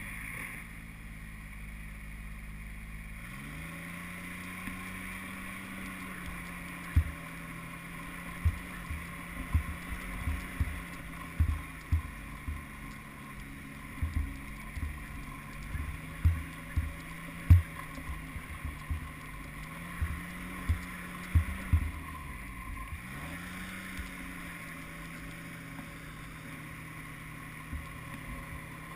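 Snowmobile engine running at a steady speed, its pitch rising about three seconds in, easing briefly and picking up again near the end, with wind noise and a run of short low thumps through the middle.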